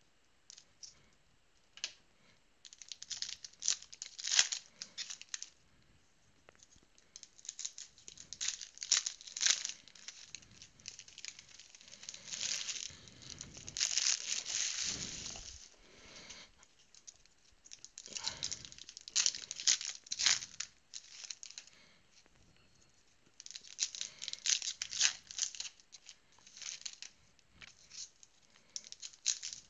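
Trading card pack wrappers being torn open and crinkled by hand. The sound comes in crackling bursts with short pauses between them, and there is a longer, louder stretch of tearing about twelve to sixteen seconds in.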